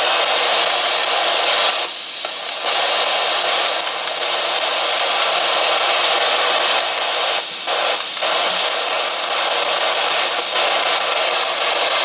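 GhostStop S-Box ghost box scanner sweeping through radio stations, giving a steady hiss of static. It breaks off briefly about two seconds in and twice in quick succession around the middle.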